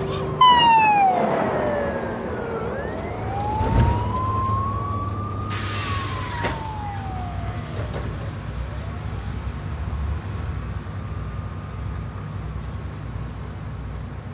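Emergency-vehicle siren wailing in slow rises and falls, each sweep taking about three seconds, growing fainter toward the end, over a steady low rumble. A brief loud hiss comes about five and a half seconds in, and a dull thump shortly before it.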